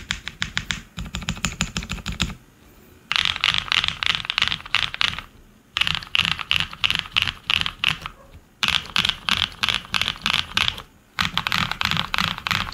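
Typing on a custom 60% mechanical keyboard with lubed Darling Frankenswitch switches, a polycarbonate plate, ePBT keycaps and a foam-dampened walnut case. Keys are pressed in quick runs of two or three seconds each, with brief pauses between them.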